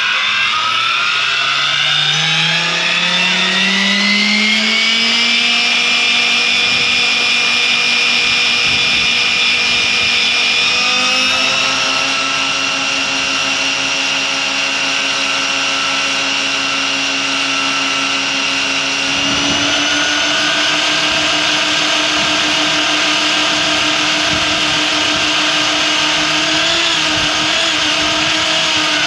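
Goosky RS7 electric RC helicopter spooling up: the whine of its motor, gears and rotors rises steadily over the first few seconds, then holds at head speed, the pitch shifting slightly about eleven seconds in and again about nineteen seconds in.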